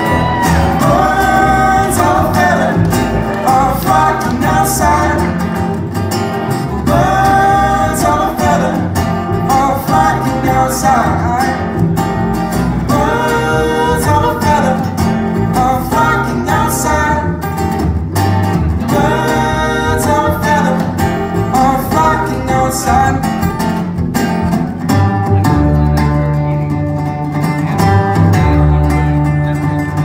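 Live acoustic band: two acoustic guitars and an upright bass with sung vocals. About 25 seconds in the singing stops and the guitars and bass carry on, the bass louder.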